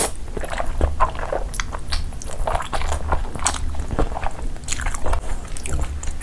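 Close-miked chewing of spicy Samyang noodles with cheese and corn: a steady run of short, wet mouth clicks and smacks.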